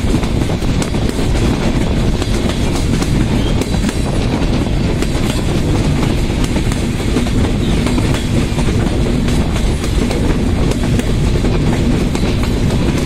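Passenger train running along curved track, heard from aboard one of its coaches: a steady rumble of steel wheels on rail, with the clickety-clack of wheels passing over rail joints.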